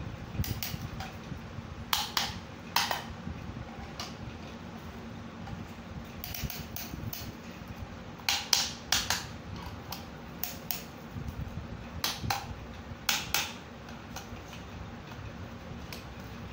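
Sharp metallic clinks and clicks in clusters a few seconds apart, as a band-type piston ring compressor is tightened with its key around a piston and shifted on the cylinder bore of a cast engine block while a piston is being fitted. A steady low hum runs underneath.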